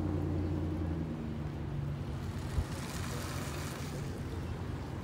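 Low, steady hum of a passing engine, fading away within the first second or two, then outdoor background with a single knock and a brief hiss around three seconds in.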